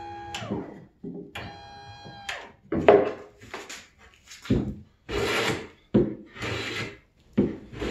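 Salvaged lift-chair linear actuator motor driving the vise jaw with a steady whine that winds down and stops about half a second in, then runs again briefly. After that comes a string of short wooden scrapes and rubs as a board slides against the plywood vise jaws, the loudest about three seconds in.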